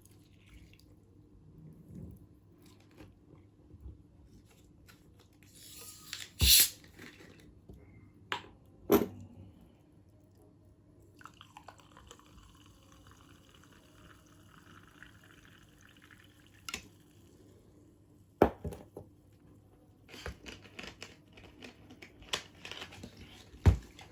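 Close-miked eating of chicken biryani: wet chewing and handling of the food, with about four loud sharp clicks spread through it.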